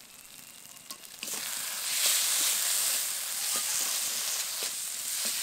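Potoler dorma stuffing (pointed-gourd seed paste, paneer and mashed potato with spices) frying in mustard oil in a kadai while it is stirred: a loud, even sizzle that starts suddenly about a second in, with light scrapes of the stirring spoon.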